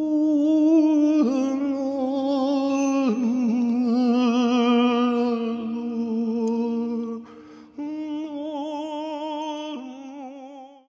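Wordless vocal toning: slow, sustained hummed or sung notes with vibrato, shifting pitch every couple of seconds, and fading out at the end.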